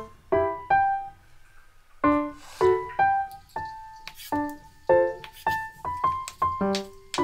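Background piano music: a gentle run of single notes and chords, a few a second, with a short pause about a second in.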